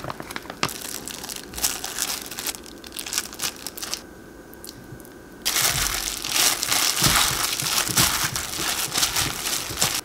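Thin plastic crinkling as a plastic bag and a disposable plastic glove handle and squeeze blanched napa cabbage leaves in a glass bowl. It eases off briefly about four seconds in, returns louder as the gloved hand kneads the leaves with soybean and chili paste, and stops suddenly at the end.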